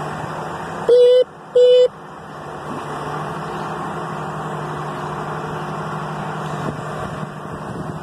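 Crane truck engine running steadily, with two short, loud pitched blasts about a second in.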